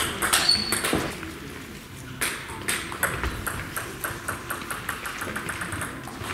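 Table tennis ball clicking off bats, table and floor in a sports hall. A few sharp knocks come in the first seconds, with a brief shoe squeak on the hall floor about half a second in. Then comes a run of quick, light, evenly spaced bounces, about five a second.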